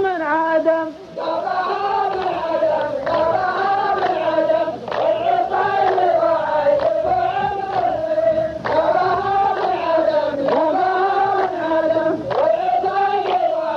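Chorus of men chanting a qalta verse in unison, a drawn-out melody that rises and falls, with a short break about a second in.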